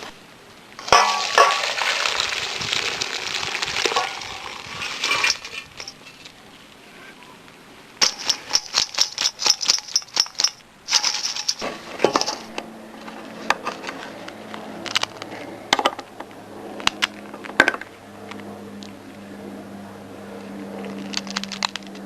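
A pot of freshly boiled yabbies being drained: water pouring out for about four seconds, then a quick run of clinks and rattles of shells against the pot. A low steady hum comes in after about twelve seconds, with scattered clicks over it.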